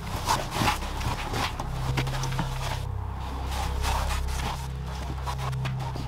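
Fast-forwarded footsteps going down a stone spiral staircase, heard as quick, irregular scuffs and taps with sped-up breathing, over a low steady drone.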